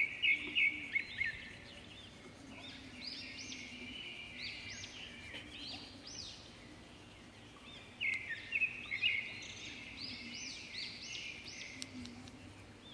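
Small birds chirping in quick runs of short, high chirps, louder at the start and again from about eight seconds in.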